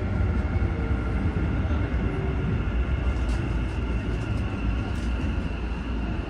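Keikyu electric train running: a steady low rumble with several constant high whines over it.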